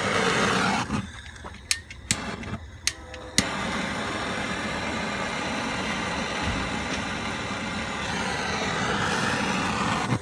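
BernzOMatic trigger-start plumbing torch: a brief hiss of gas, then about five sharp clicks of its trigger igniter as it takes several tries to light. About three and a half seconds in the flame catches and burns steadily with a rushing noise, then stops.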